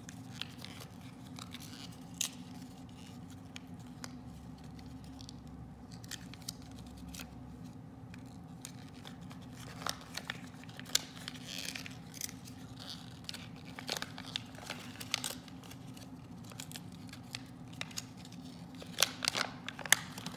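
Folded paper leaflet being handled and unfolded: scattered crinkling and rustling with small crackles, busiest near the end as it is opened out.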